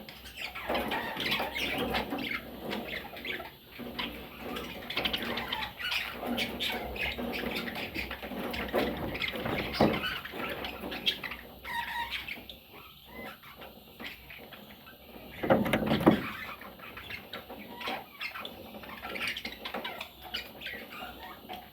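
Budgerigar chicks calling continuously in a rapid, overlapping chatter of short high calls, with a quieter patch in the middle and a loud burst about three-quarters of the way through.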